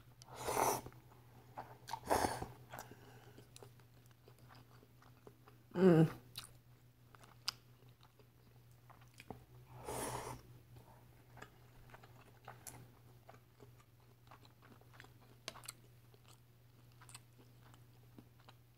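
Close-up eating sounds of ramen noodles: wet chewing and small mouth clicks, with louder slurps of noodles near the start, about two seconds in and about ten seconds in. The loudest sound, about six seconds in, is a short mouth sound falling in pitch, like a gulp.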